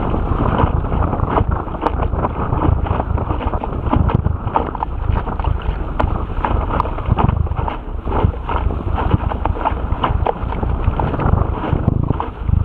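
Topper Topaz sailing dinghy's hull slapping and splashing through choppy water at speed, a steady rush of spray broken by frequent irregular slaps. Heavy wind buffets the boat-mounted microphone.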